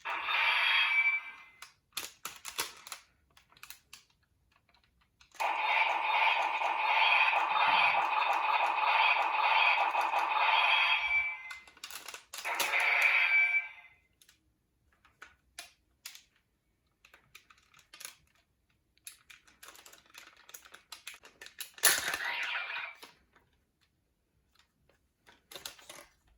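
Quick clicks and taps of a folded-paper toy sword being handled and reconfigured. Several longer sustained tonal sounds also occur; the longest lasts about five seconds in the middle.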